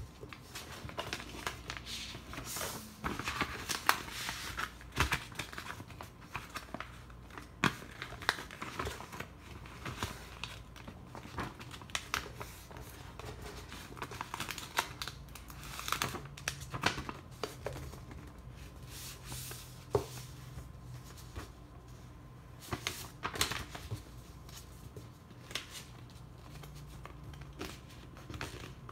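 A sheet of white paper being folded and creased by hand: irregular rustling and crinkling, with sharp taps and swipes as fingers press the folds flat.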